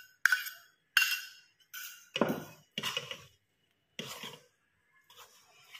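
Steel spoon clinking and scraping against a steel bowl and a steel kadhai as melted ghee is scraped out and the flour mixture is stirred: about six separate metal clinks and knocks, roughly one a second, some bright and ringing, a couple duller, with faint scraping near the end.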